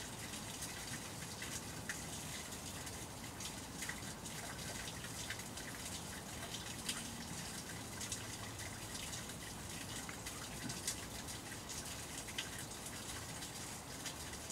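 Steady, even rush of running water with faint scattered ticks.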